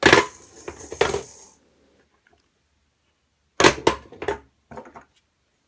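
Hollow plastic capsule balls clattering down through a Fisher-Price gumball play machine toy: a loud clatter and rattle right at the start lasting about a second and a half, then another run of sharp plastic clacks about three and a half seconds in.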